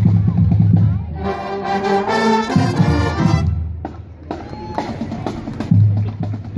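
Marching band playing as it passes, its brass section of trombones, trumpets and baritone horns to the fore. Loud low notes at the start give way to a higher phrase, the music thins out briefly around the middle, and the low brass comes back near the end.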